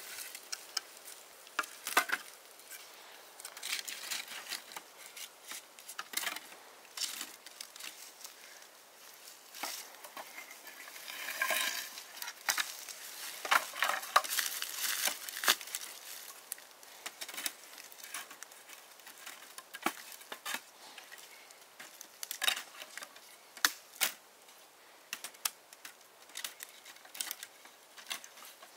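Food preparation in a kitchen: irregular clicks and knocks of utensils and vegetables being handled, with rustling and crinkling. The rustling grows louder about eleven seconds in and again around fourteen to fifteen seconds.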